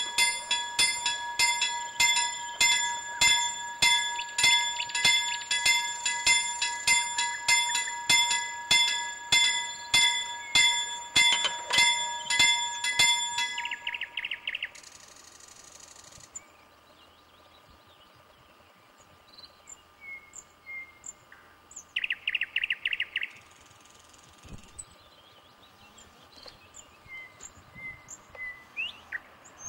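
Level-crossing warning bell striking steadily about twice a second, then stopping abruptly about halfway through. Birds then chirp, with two short rapid trills.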